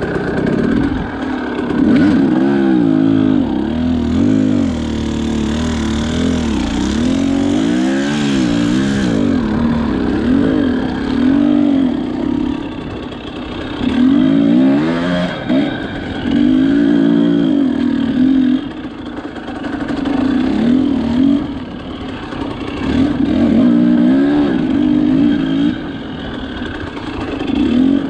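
Two-stroke dirt bike engine, a Husqvarna TE300, being ridden with repeated bursts of throttle. The revs rise and fall over and over, with short drops between the pulls.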